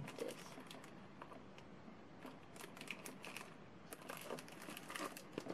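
Faint, scattered clicks and light crinkling from a boxed perfume being handled and turned over in the hands.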